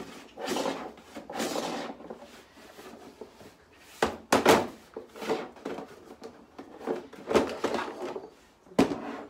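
Hollow plastic knocks, rattles and scraping from a lawnmower's plastic grass box being turned over and pulled at by hand. The sharpest knocks come about four seconds in, with more near seven and a half and nine seconds.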